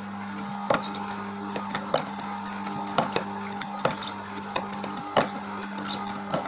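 Horizontal slow (auger) juicer running with a steady motor hum as it crushes pineapple chunks, with sharp irregular cracks and clicks about once a second as the pieces are fed in and pressed.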